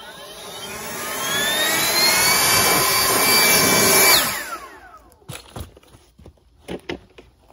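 A high-speed electric power tool spins up with a rising whine, runs steadily for a couple of seconds, then is switched off about four seconds in and winds down. A few sharp knocks follow.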